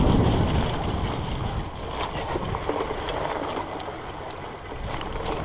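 Wind rushing over the microphone with rolling noise while a fat bike is ridden. It grows quieter over the first few seconds, with a few faint clicks.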